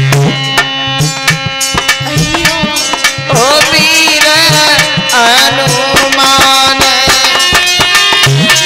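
Live Hindu devotional folk music. A harmonium holds sustained chords while hand drums keep a steady rhythm. Near the middle, a male voice sings a long gliding phrase over them.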